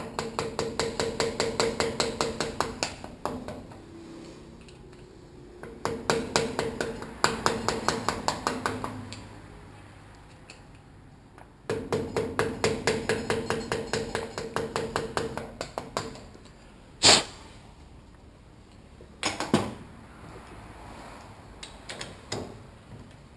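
Rapid light hammer taps on metal, about seven a second, in three runs of a few seconds each, the struck steel ringing as a damper is driven out of a 1992 Honda CR250 upside-down fork leg. Near the end come two single sharp, louder blows and a few lighter knocks.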